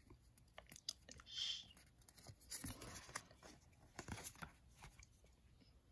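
Faint handling of Magic: The Gathering cards: cards sliding and flicking against each other as they are shuffled through by hand. There is a soft swish about a second and a half in, and light clicks scattered throughout.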